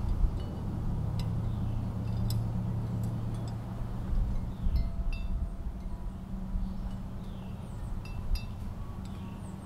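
Outdoor ambience with wind buffeting an unshielded microphone, heard as a gusting low rumble that swells about four to five seconds in. Scattered short, high, tinkling clinks and chirps sound over it.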